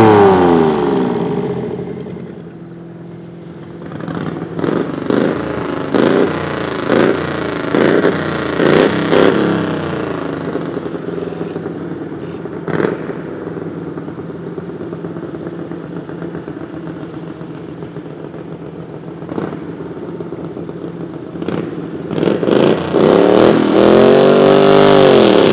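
Modified pulling garden tractor engines. At the start, one engine is running loud and winding down as its pull ends. Then a brand-new V-twin is revved in short blips about once a second, idles, and near the end winds up to high revs and holds there as it launches.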